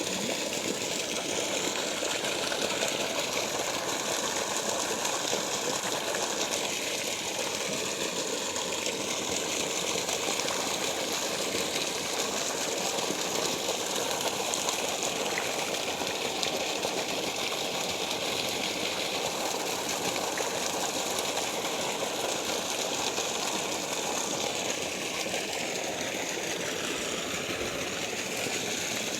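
Water flowing and gushing in a steady, unbroken rush.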